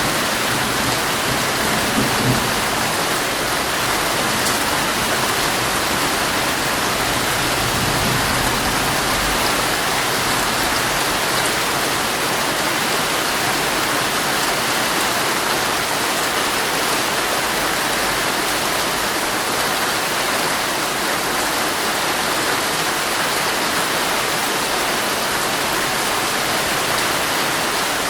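Heavy rain drumming steadily on a tent's fabric, with faint low rumbles about two seconds in and again around eight seconds.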